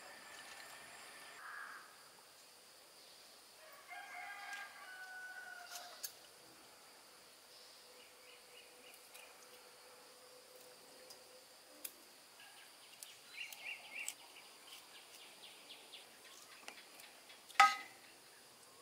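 A rooster crows once, a call of about two seconds starting about four seconds in, against a faint steady high insect drone. A sharp click near the end is the loudest sound.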